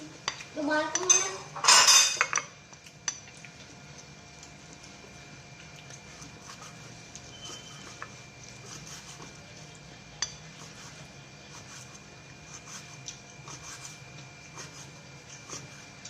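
Light clinks of cutlery against dishes at a meal, scattered faint ticks with one sharper click about ten seconds in, over a steady faint hum. Voices are heard briefly at the start.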